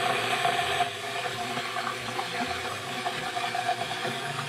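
Stick blender running steadily in a glass jar: a constant motor whine over the churning hiss of liquid, as it blends oil, citrus juice and honey into an emulsified vinaigrette.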